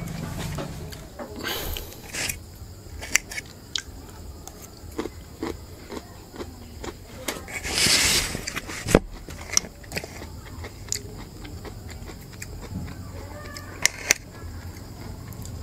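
Close-up eating sounds of a man biting and chewing grilled pork ribs and broccoli, with scattered sharp clicks of a fork against the plate, two of them loud, about two thirds of the way through and near the end.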